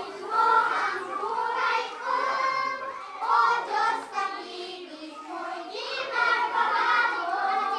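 A group of children singing together in phrases, performing an action song.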